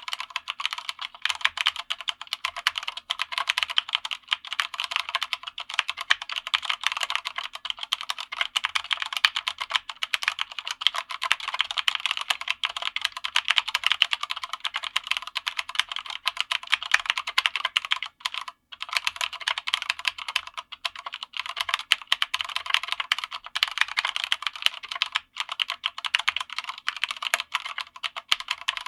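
Corsair K65 RGB Mini 60% mechanical keyboard with Cherry MX RGB Red linear switches being typed on quickly and continuously, a dense run of light, high-pitched keystroke clacks. The typing breaks off briefly twice, about 18 and 25 seconds in.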